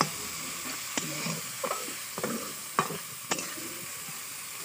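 Sliced onions sizzling in oil in a deep kadai, with a spatula scraping through them and clinking against the pan about six times as they are stirred.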